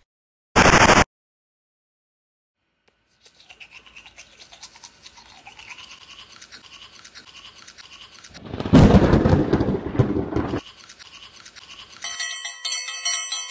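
A string of edited-in sound effects: a short burst of noise about half a second in, then a steady crackling, fluttering texture with a loud low rush past the middle, and a bright ringing chime near the end.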